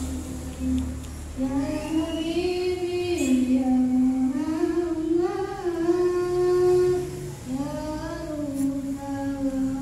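A child singing a slow melody through a microphone, holding long notes that slide up and down, with a short breath break a little after seven seconds.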